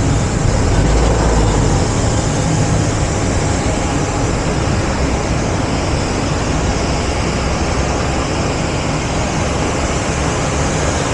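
Steady loud roar of airport apron noise: jet aircraft and ground equipment running, heaviest in the low rumble.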